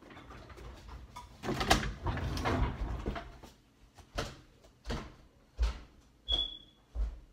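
A person getting up from a seat with rustling and shuffling, then footsteps walking away at a steady pace, about one step every 0.7 seconds. One short, high squeak comes between steps near the end.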